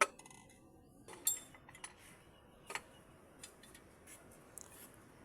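Metal tools and parts clinking and tapping, as in engine repair work. There is a sharp click at the start, a louder clink about a second in, another near three seconds, then a few faint ticks.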